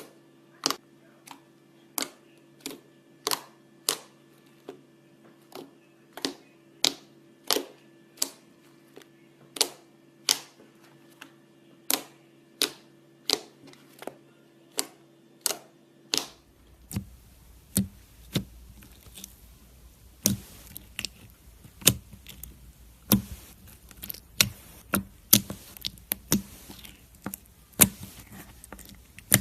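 Slime being pressed and poked, making a run of sharp popping clicks, about one to two a second and uneven in loudness. A steady low hum under the clicks stops about halfway through.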